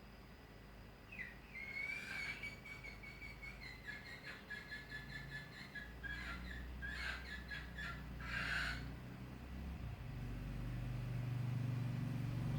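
A bird calling: a long high note about a second in runs into a string of quick repeated notes, ending in a short harsh burst. A low engine hum builds near the end.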